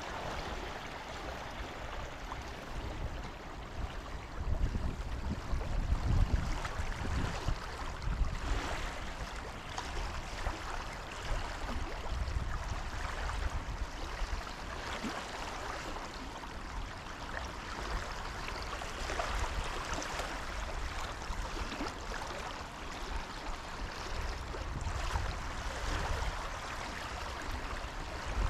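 River current rushing steadily past the ice edge, with irregular low rumbles on the microphone that are strongest a few seconds in.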